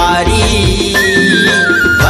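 Chhattisgarhi folk dance song playing loudly, with a drum beat. About halfway through, a high melodic line is held and slides slowly down in pitch.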